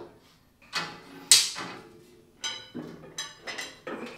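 Metal drum lid of a Laguna C|Flux 1 cyclone dust collector clanking against the cyclone and frame as it is fitted into place. There is a sharp, ringing clank a little over a second in, then a run of lighter metallic knocks and rattles.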